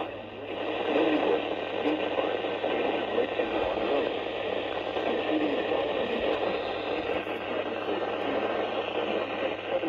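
Weather radio receiver hissing with heavy static from a weak signal, the automated voice reading a severe thunderstorm warning faintly buried under it. A steady low hum runs beneath.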